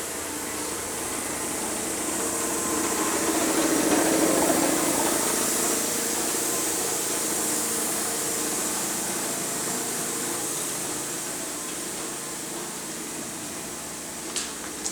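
A power tool running steadily, swelling louder about four seconds in and then easing back, with a short sharp click near the end.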